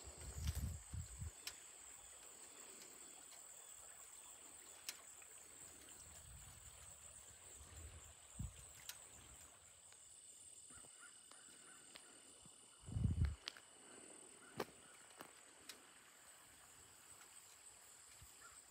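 Quiet rural ambience with a steady high insect drone, joined by a second, lower insect tone about ten seconds in. A few low bumps hit the microphone, the loudest about two-thirds of the way through.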